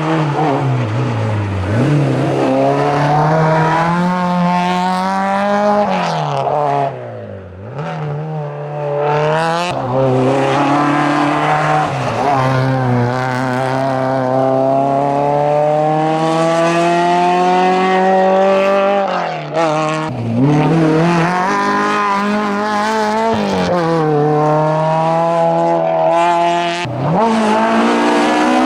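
Renault Clio Sport racing car engine driven hard up a hillclimb course. Its pitch climbs under full throttle and drops back sharply at each gear change or lift for a corner, about six times, with one long pull in the middle.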